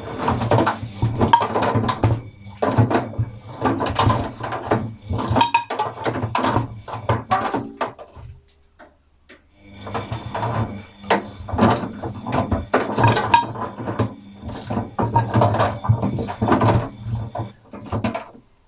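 Atlant 50U101 washing machine in a wash cycle: the motor hums as the drum turns, and paint rollers and brushes clatter and knock about inside. About eight seconds in the drum stops for a second and a half, then turns again.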